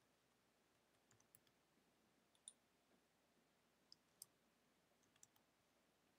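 Faint, scattered clicks of a computer keyboard and mouse during typing, about a dozen sharp clicks spread irregularly over several seconds.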